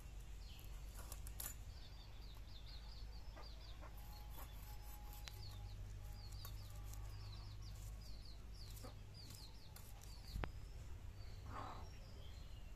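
Chickens calling in quick series of short, high, falling peeps, over faint scraping of a blade against small fish as they are scaled. A single sharp click sounds about ten seconds in.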